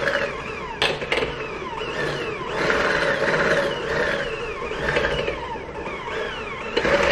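Electric hand mixer running steadily, its beaters whipping heavy cream and cream cheese in a bowl toward stiff peaks, with a brief knock about a second in.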